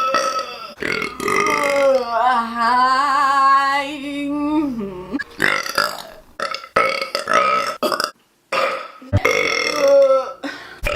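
A woman burping: one long burp of about four seconds, starting about a second in, whose pitch wavers and drops at the end, followed by several shorter burps.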